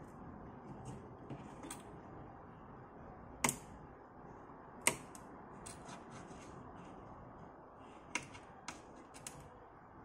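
Irregular sharp clicks and light scrapes of a small screwdriver prying a Motorola 68000 CPU out of its socket on an Amiga 500 Plus motherboard. The two loudest clicks come about three and a half and five seconds in, with a few more near the end.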